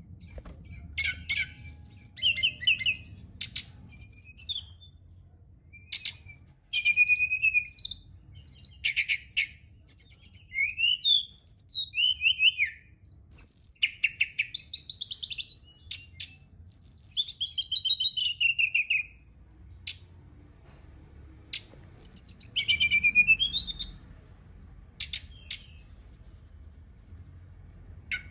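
Brown-chested jungle flycatcher (SRDC) singing: a continuous series of short, varied whistled and trilled phrases with brief pauses between them, over a faint low hum.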